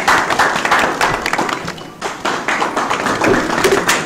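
Hubbub of a crowded room, many people talking at once, with many scattered, irregular sharp clicks and claps.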